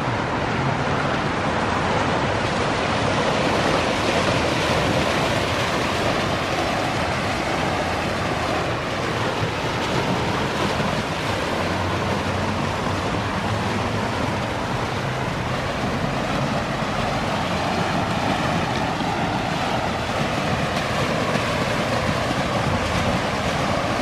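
Water from a fountain's tiered waterfalls spilling over brick walls and splashing steadily into the basin.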